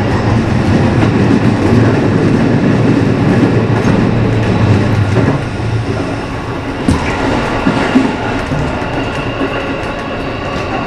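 JR West 207 series electric train running on curving track, heard from inside the cab: wheel and rail noise with clickety-clack over a low steady hum that stops about six seconds in. In the second half an oncoming limited express passes on the adjacent track, with a couple of sharp knocks.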